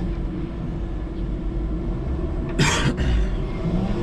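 Electric forklift truck running and reversing, a steady low rumble of its drive and hydraulics, with one short sharp hiss about two and a half seconds in.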